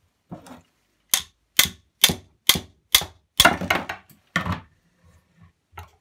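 About eight sharp knocks, roughly two a second, then a few fainter clicks near the end, as a washing machine drain pump motor's stator is knocked apart: the copper-wound coil bobbins are driven off the steel lamination core.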